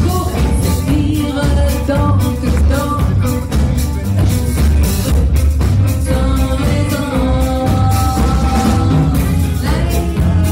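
Live band playing a song: violin carrying held melodic notes over archtop electric guitar, upright double bass and drum kit.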